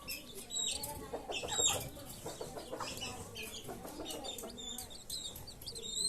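Black-tailed white Japanese bantam chicks peeping, short high falling peeps repeated, with a quick run of them near the end, over some lower clucking from chickens.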